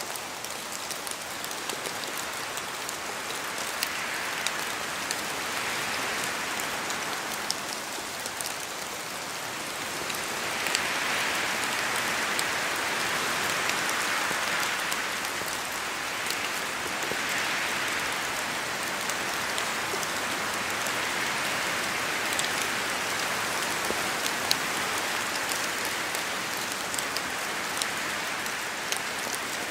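Steady rain falling in a forest, with many separate drops pattering from the trees. The sound swells louder in waves lasting a few seconds as gusts of wind move through the canopy.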